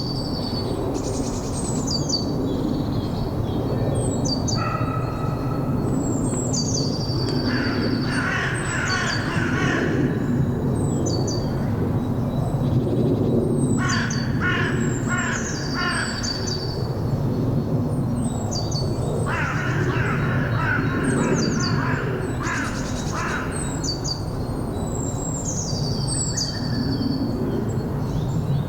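Wind blowing steadily under birdsong. A small bird repeats a high, falling song phrase every couple of seconds, and a larger bird gives runs of harsh, rapidly repeated calls several times.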